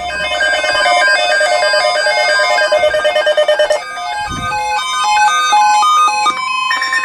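An electronic melody of beeping tones that step up and down in pitch like a ringtone, with a fast warble for about the first four seconds and slower single notes after.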